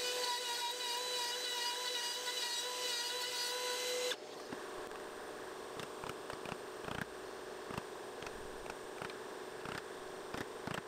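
Milwaukee palm router running at a steady high-pitched whine while routing out a hinge mortise in pine, cutting off abruptly about four seconds in. After that come light scattered clicks and taps.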